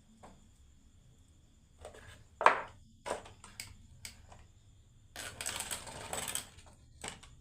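Marbles clicking and knocking on a wooden marble run: a handful of separate clicks, the loudest about two and a half seconds in, then about a second of close-packed rattling near the end and one last click.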